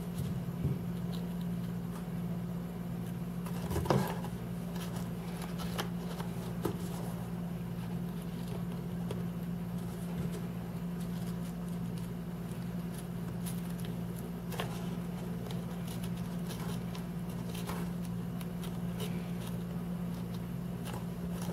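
A steady low hum in the background, with a few soft taps and rustles from hands pressing and fitting EVA foam pieces onto a doll head.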